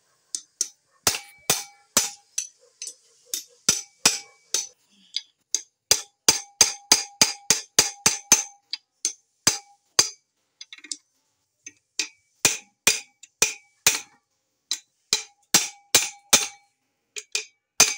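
Repeated sharp metal-on-metal strikes, each with a short clear ring, on a motorcycle engine's open crankcase and crankshaft. The blows come in irregular runs of a few a second, with short pauses between runs.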